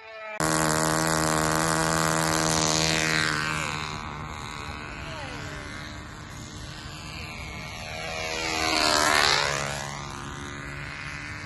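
Control-line model airplane's small engine running at speed as the plane flies laps, its pitch and loudness swelling and falling each time it passes, twice here, the second pass the loudest. It jumps up in loudness about half a second in.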